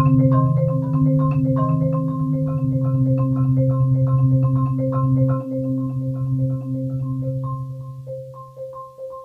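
Solo marimba played with yarn mallets: a repeated note struck evenly about two and a half times a second over sustained low rolled notes. The low roll drops away about halfway through, and the playing grows softer near the end.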